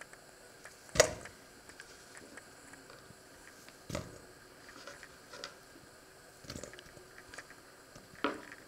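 Sliced sausage dropped by the handful into a stainless steel bowl: a sharp knock about a second in, another near four seconds, a few lighter taps, and one more knock near the end.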